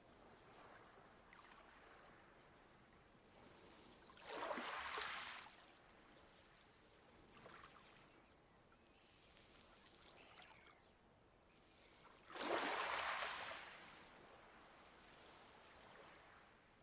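Light waves washing onto a pebble beach, with faint lapping between two stronger waves that wash in about four seconds in and again about twelve seconds in, each lasting a second or so.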